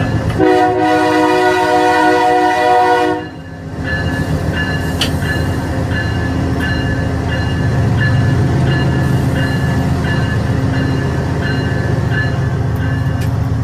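Train horn sounding, a brief blast and then a long blast of about three seconds. The steady rumble of the running train follows.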